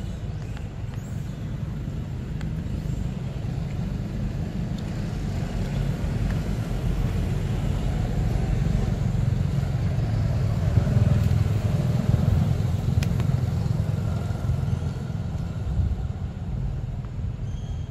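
A low rumble that swells gradually to its loudest around the middle and eases off toward the end.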